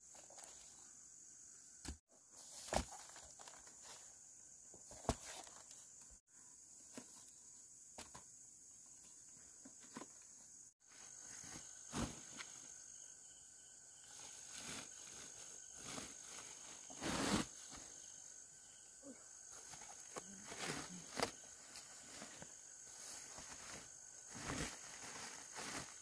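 Steady high insect chirring, with rustling of leaves and a plastic sack as pumpkins are handled, and a few sharp thumps.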